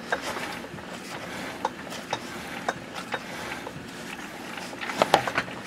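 A 5/16-24 tap cutting a thread in a workpiece on a metal lathe whose spindle is being turned over by hand: irregular light metallic clicks and ticks, with a few louder clicks about five seconds in.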